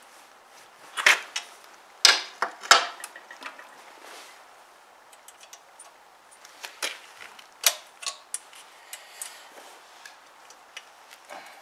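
Metal clicks and clinks of a wrench working the nuts of a steel straight-pipe exhaust header as it is fitted to a small engine's cylinder head. Scattered sharp clicks, a cluster of louder ones in the first three seconds and a few more about seven seconds in.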